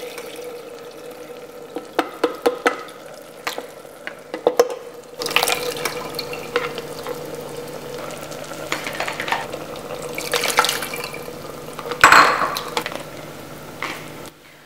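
Tamarind water poured through a colander into an Instant Pot's stainless steel inner pot, then the tomato and dal mixture stirred with a spatula: liquid splashing, with scattered knocks and scrapes against the pot, the loudest near the end.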